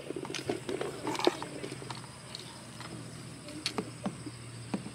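Scattered light clicks and knocks of fuel pump parts being handled, the sharpest a little over a second in, over a low steady hum.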